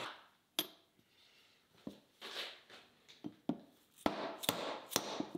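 Small metal parts being handled on a wooden workbench: about eight irregular sharp clicks and light knocks, with short rubbing and scraping sounds between them.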